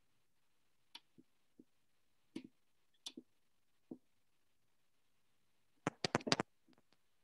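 Scattered sharp clicks and taps, then a quick run of about six louder clicks about six seconds in.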